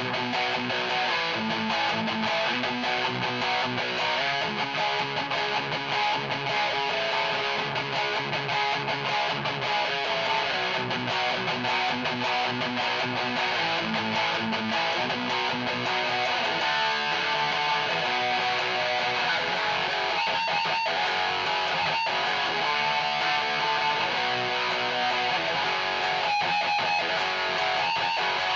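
Heavy distorted electric guitar riff played through a Peavey 6505 Piranha amp and its 1x8 cabinet, with Seymour Duncan Blackout active pickups. It chugs on low notes at first, then moves to higher, held notes with short stops about halfway through.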